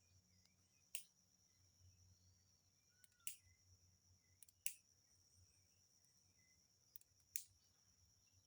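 Small twig fire crackling faintly, with about six sharp pops scattered through it, over a steady high insect drone.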